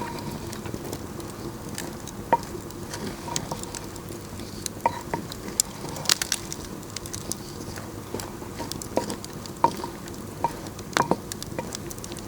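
Aubergine and courgette curry cooking in a clay pot over an open fire: a steady sizzle with scattered sharp pops and crackles at irregular intervals.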